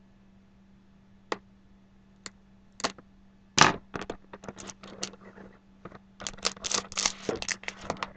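Trading card packaging being opened and handled: a few light clicks, one sharp crack about three and a half seconds in, then a quick run of crinkling and rustling near the end, over a faint steady hum.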